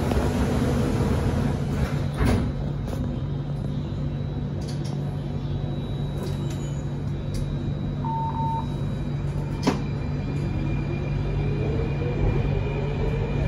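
Inside an Alstom Metropolis C830 metro car at a station stop: a steady low hum, with the doors knocking shut about two seconds in and another sharp knock near ten seconds. There is a short beep about eight seconds in. Near the end the traction motors start a slowly rising whine as the train begins to pull away.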